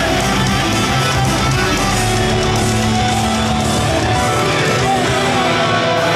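Loud rock music with guitar and singing, playing as a wrestler's entrance music.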